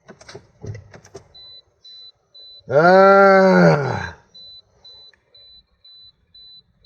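Car warning buzzer beeping steadily at a high pitch, about twice a second. About three seconds in, a loud drawn-out groan rises and falls in pitch for just over a second.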